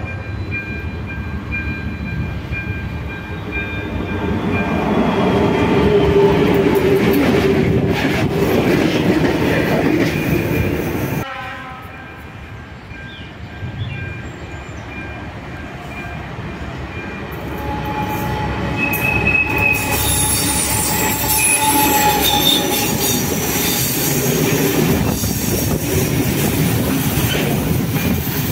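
Diesel-hauled freight train passing: a diesel locomotive runs as it approaches, with steady high tones in the first part. Later, loaded tank wagons roll past close by, their wheels squealing and clacking over the rail joints.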